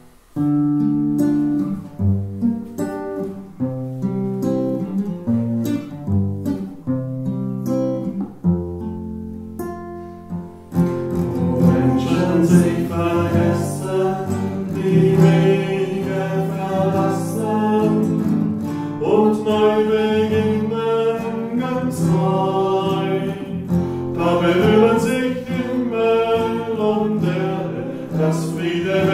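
Acoustic guitar playing a plucked introduction, then voices singing a hymn with the guitar from about ten seconds in.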